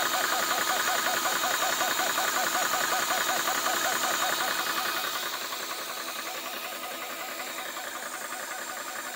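ToAuto 4500 PSI PCP air compressor running under load with a rapid, regular pulse and a hiss over it, pumping a PCP air rifle's reservoir up at around 500 PSI. It gets quieter about five seconds in.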